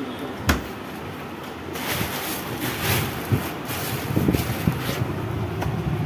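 Steady background din of a busy shop, with a sharp knock about half a second in and scattered smaller knocks and handling sounds after.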